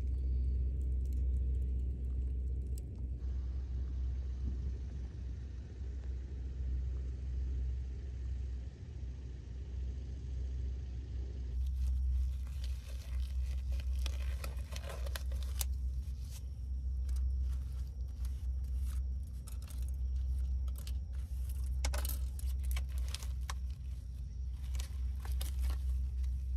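A steady low rumble throughout. About twelve seconds in, close rustling and clicking begins as rubber-gloved hands pull at the gloves and handle a plastic-wrapped meat tray.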